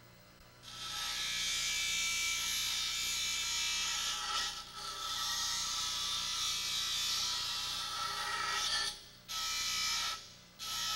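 Bench grinder wheel grinding the steel tip of a dent-repair tool, rounding it off: a steady hissing rasp over the motor's low hum, starting just under a second in. The grinding breaks off briefly about nine seconds in and again near the end as the tool comes off the wheel.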